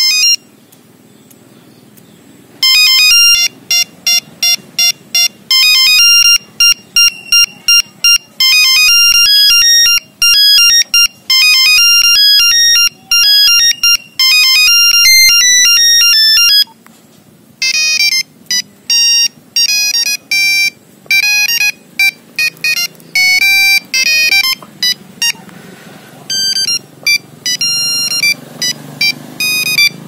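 Nokia 3350 playing its monophonic ringtone previews through the phone's small speaker. A short key beep comes first, then one tune of quick buzzy electronic notes runs for about fourteen seconds. After a brief pause, a second tune starts about eighteen seconds in.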